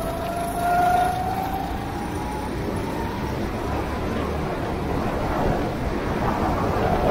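Go-kart engine running, its note rising over the first second and then fading into a steady rushing noise.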